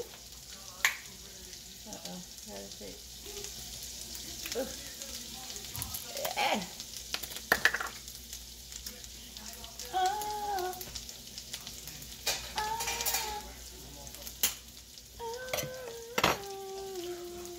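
Butter and garlic sizzling steadily in a hot frying pan as the butter melts, with a few sharp clicks and knocks now and then.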